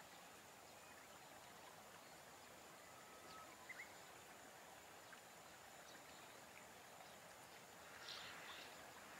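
Near silence: faint outdoor hiss, with a couple of faint short chirps about four seconds in and a brief faint cluster of higher calls near the end.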